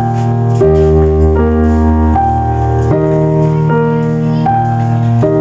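Background music: sustained keyboard chords changing about every three-quarters of a second over a steady bass.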